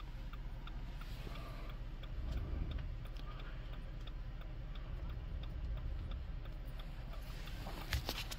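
The 2013 Dodge Journey's hazard-light flasher ticking steadily in the cabin, about three ticks a second, over a low steady hum, with a single thump near the end.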